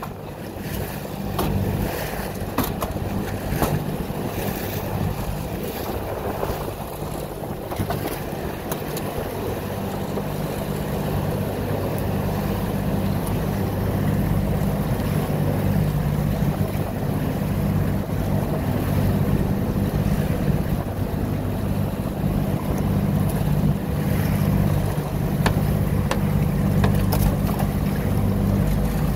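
Boat engine running steadily under way, a low hum under the rush of water along the hull and wind on the microphone, growing a little louder toward the end. A few sharp knocks in the first few seconds.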